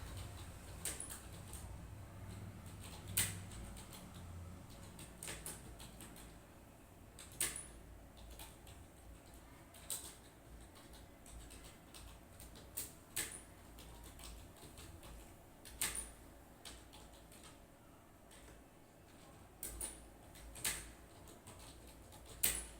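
Slow, irregular keystrokes on a computer keyboard, single clicks every second or two, over a faint low room hum.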